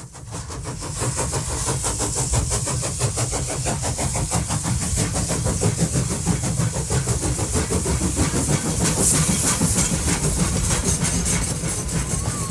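Steam locomotive running, with rapid, even chuffs and steam hiss over a steady low rumble, fading in over the first second or so.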